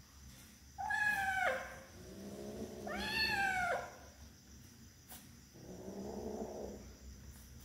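Kitten's angry yowls: two loud drawn-out calls about a second long, each falling in pitch at the end, then a lower, quieter call near the end. This is typical of a kitten guarding a piece of raw meat from another kitten.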